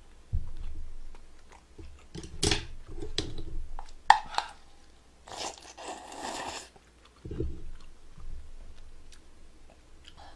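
Close-miked eating sounds: wet chewing and lip smacks with a few sharp clicks. About halfway through comes a longer slurp of broth drunk from a bowl. A couple of low thumps come early on and later.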